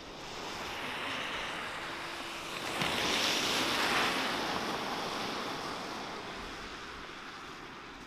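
A car driving past on a snowy, slushy road: tyre hiss swelling to its loudest about three to four seconds in, then fading away.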